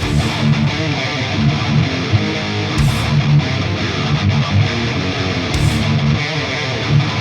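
Heavy metal riffing on a high-gain electric guitar: a Steinberger Spirit through a Friedman BE-OD overdrive pedal and an ENGL 4x12 V30 cabinet impulse response, with no amp. It plays over a full band backing track with drums, and two cymbal crashes come about three and five and a half seconds in.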